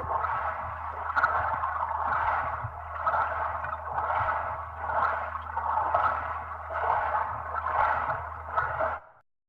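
Underwater bubbling, a dense gurgling wash that swells and eases about once a second over a steady low hum. It cuts out abruptly for about half a second near the end.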